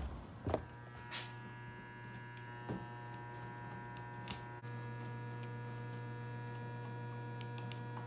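Steady electrical mains hum with several steady tones, a little louder from about halfway through, with a few light clicks of a screwdriver working the top panel screws of a Manitowoc ice machine.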